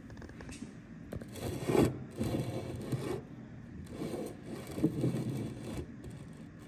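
Detroit Diesel 6-71 cylinder liner being turned on a steel table-top, its carbon-crusted end scraping against the metal. It comes in two stretches, about a second in and again about four seconds in.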